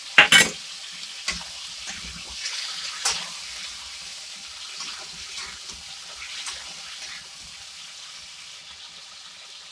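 Masala sizzling steadily in hot oil in a metal kadai, loosened with a splash of water so the spices don't stick, while a metal spatula stirs potatoes and tomatoes, scraping and clinking against the pan. A loud metal clatter comes right at the start and a sharper clink about three seconds in.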